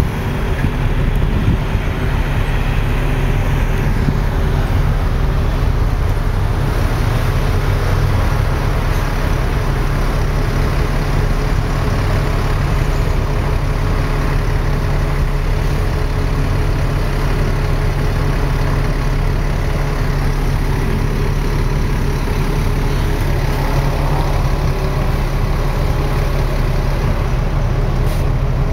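Open-top double-decker bus running, its engine a steady low hum under the continuous noise of surrounding city traffic, heard from the open upper deck.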